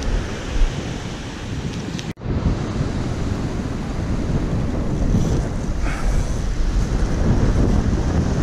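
Wind buffeting the microphone over the steady wash of surf breaking on the beach, with the sound dropping out for an instant about two seconds in.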